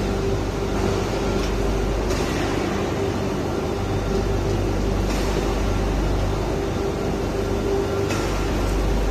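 Steady mechanical drone of workshop machinery, with a low hum and a faint hiss that swells briefly about every three seconds.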